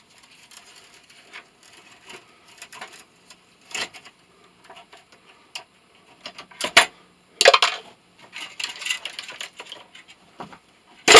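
Metal parts and hand tools clinking, scraping and knocking as a scrap motor is taken apart with a screwdriver. There are a few sharper clanks in the second half, the loudest near the end.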